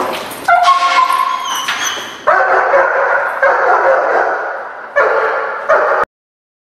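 German Shepherd barking repeatedly and hard at a person it has found and cornered: a protection dog's bark-and-hold alert. The barking cuts off suddenly about six seconds in.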